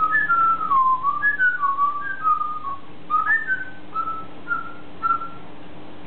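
African grey parrot whistling a run of clear notes, some gliding up or down, quick at first and then thinning to a few short, spaced notes near the end.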